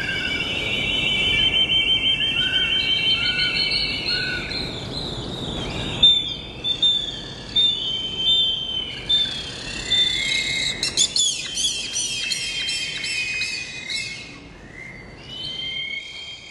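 Birds calling: a fast trill over a steady rushing noise, which cuts off abruptly about six seconds in. Then come short falling whistles and chirps, with a quick run of rising chirps in the middle.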